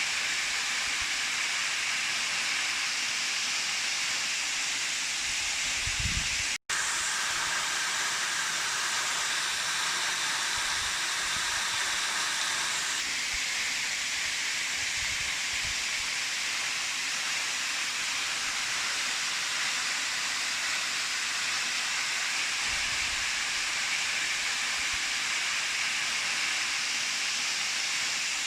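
Waterfall pouring: a steady rushing hiss of falling water. It cuts out for an instant about six and a half seconds in.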